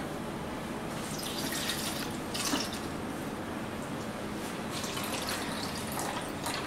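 Liquid poured from a glass cup, splashing and trickling in a few short, uneven pours.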